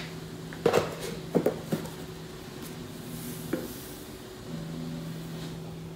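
A few small clicks and knocks from handling a salt container and measuring spoon while measuring salt for soda bread, with a brief faint hiss about three seconds in as the salt pours. A steady low hum lies underneath, dropping out for a few seconds in the middle.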